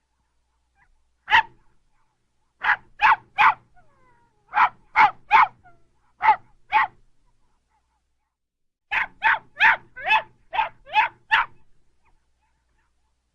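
Small dog barking in short, sharp, high-pitched yaps. A single bark comes first, then quick bursts of two or three, and near the end a fast run of about eight barks.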